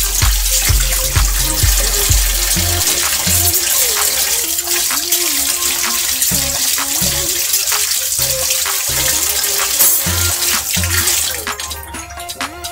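Kitchen tap running into a steel sink, the water splashing over hands rinsed under the stream, shut off near the end. Background music with a steady beat plays underneath.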